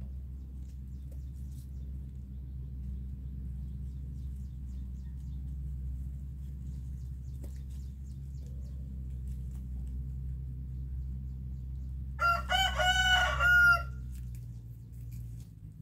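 A rooster crows once, about twelve seconds in: one loud, pitched call of about a second and a half, over a steady low rumble.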